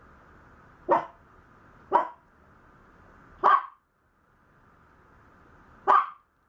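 Maltese puppy barking: four short, sharp single barks, spaced one to two and a half seconds apart.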